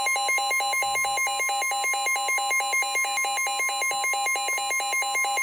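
Emergency Alert System alert tone for a severe thunderstorm warning: a steady electronic tone under a harsh, rapidly alternating warble that repeats several times a second.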